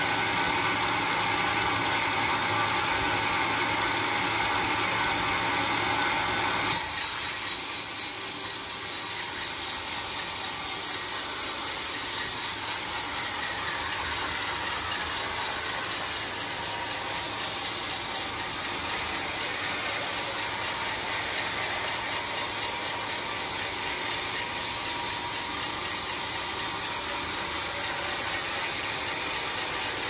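Homemade bandsaw sawmill running, a steady mechanical noise. Its sound changes abruptly about seven seconds in, with a brief loud jolt, and after that it has a fast fluttering texture.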